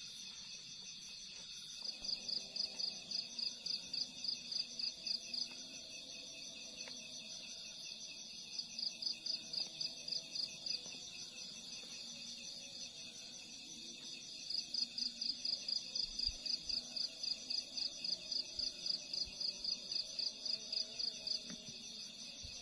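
Night insects chirping: a steady high drone with three bouts of rapid pulsed chirps, about four a second, the last and longest running from about a third of the way in almost to the end.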